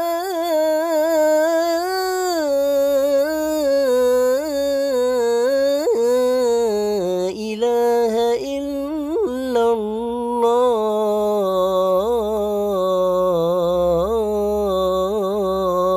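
A man's voice chanting the closing "lā ilāha illā-llāh" of the adhan in maqam Jiharkah, drawn out as one long melismatic line with sliding, wavering ornaments. Dry and unprocessed, recorded on an old mobile phone.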